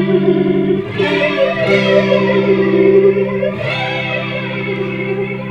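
Electric guitar chords played through the Chase Bliss Spectre analog through-zero flanger, set for a Leslie-like rotary sound with the zero point ramping along with the rate, giving a sweeping, swirling flange. The chords are struck again about a second in and around three and a half seconds.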